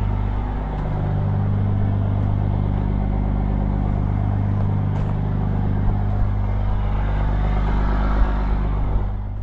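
Truck engine running steadily at an even speed, a deep, constant sound with no revving, easing off slightly near the end.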